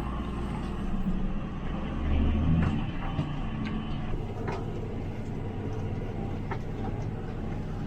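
A vehicle's engine running steadily, with a few sharp clicks and knocks through the middle.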